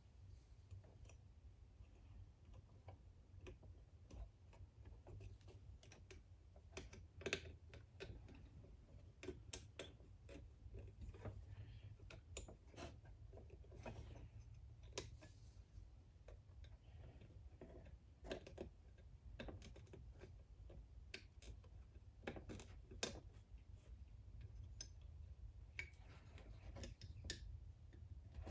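Faint, irregular clicks and light metallic taps from hands working a piston and its spiral-lock wrist-pin retainers, over a steady low hum.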